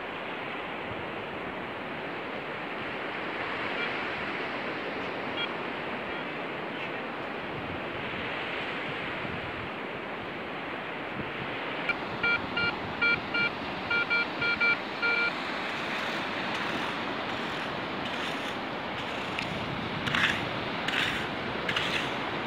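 Surf washing on the shore. About twelve seconds in, a Garrett Ace 150 metal detector gives a quick run of repeated beeps for about three seconds, signalling a buried metal target under the coil. Near the end, short scraping crunches as a hand scoop digs into the wet sand.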